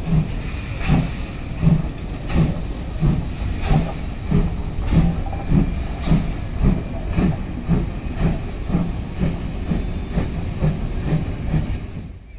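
Steam locomotive pulling away with a train of coaches: an even run of exhaust beats over a steady hiss, quickening from about three beats every two seconds to about two a second as the train gathers speed.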